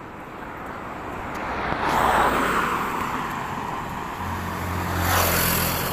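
Motor vehicles passing close by on a road. One goes past about two seconds in, and a second, with a low engine drone, builds from about four seconds in and passes near the end.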